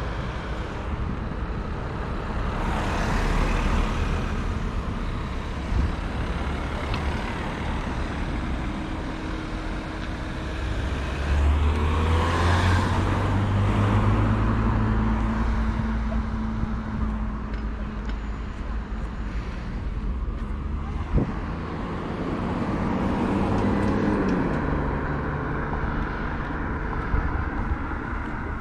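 Road traffic: motor vehicle engines running and road noise, with engine hum stepping up and down in pitch and louder swells as vehicles pass about 3 and 12 seconds in.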